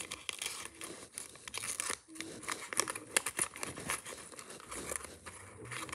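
Origami paper crinkling and rustling as hands open out and handle a folded paper bunny, an irregular run of small crackles.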